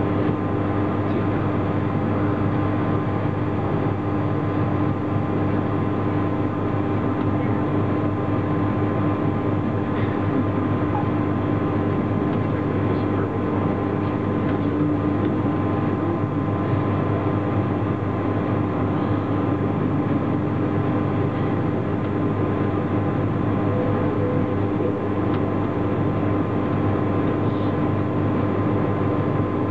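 GoldenPass Panoramic electric train running on the track, heard from the front passenger seats inside the car: a steady hum of motors and wheels over an even rolling noise, with a few faint ticks.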